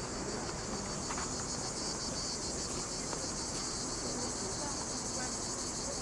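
A steady, high-pitched chorus of insects shrilling without a break, with a fine rapid pulse.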